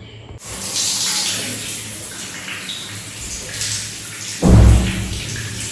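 Shower water spraying, a steady hiss that starts about half a second in; a short, loud, low-pitched hum breaks in about four and a half seconds in.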